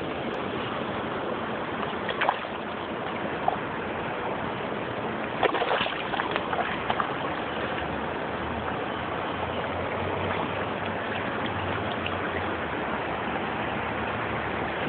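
Steady rush of flowing river water, with a few brief faint sounds about five to seven seconds in.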